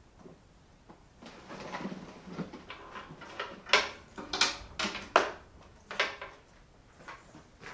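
Handling noise of objects being moved about: rustling and shuffling, then a run of about six sharp knocks and clatters in the middle.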